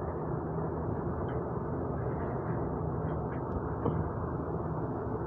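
Steady low background noise with a faint hum and no distinct events.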